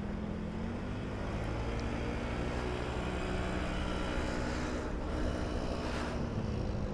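Honda Beat scooter's small single-cylinder engine running steadily under way, heard from the rider's position over wind and road noise.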